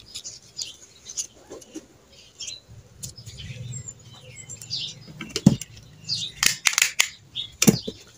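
Fresh banana leaf rustling and crackling as it is folded and pressed by hand, a run of sharp crisp crackles with a louder cluster near the end.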